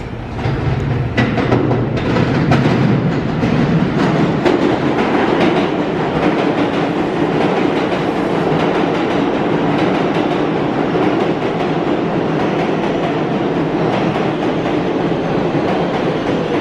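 R188 subway train running into the station past the platform: the wheels clack sharply over the switches and rail joints in the first several seconds, then settle into a loud, steady rumble as the cars roll by.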